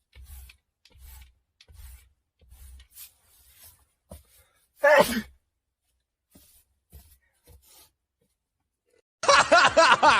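A person sneezing once, a short loud burst falling in pitch about five seconds in, after soft rustling and faint low thuds. Voices break in loudly near the end.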